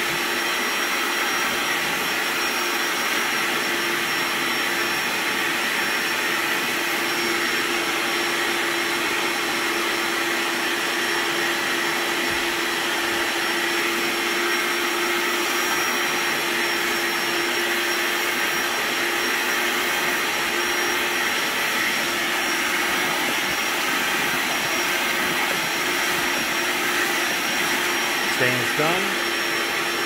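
Hoover Onepwr Spotless Go cordless spot cleaner's suction motor running steadily, a constant rush of air with a steady whine, while extracting sprayed and scrubbed cleaning solution from an upholstery stain.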